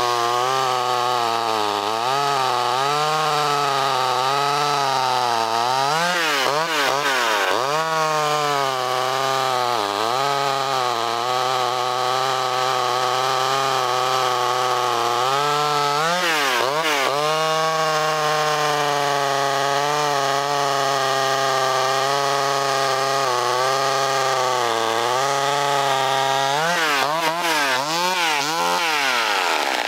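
A vintage McCulloch Mini Mac 35 two-stroke top-handle chainsaw running at full throttle through a log. Its engine note sags and recovers several times, around six seconds in, around sixteen seconds and near the end, as its new, aggressive chain bites and jumps in the cut.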